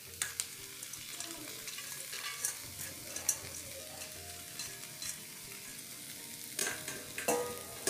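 Sweet corn kernels tipped from a stainless steel colander into a hot pan of sautéing vegetables, with a faint steady sizzle and scattered light clicks and taps of the kernels and colander. A few louder knocks come near the end.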